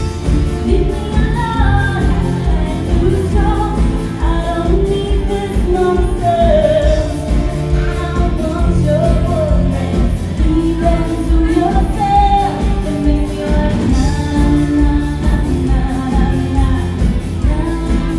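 Live band playing a pop-rock song: a woman singing the lead over electric and acoustic guitars, bass guitar and drums with a steady beat.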